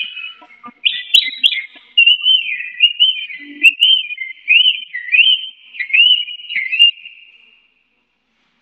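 Caged Chinese hwamei singing: a continuous, loud run of warbled whistles that turns into a series of rising slurred notes and stops near the end.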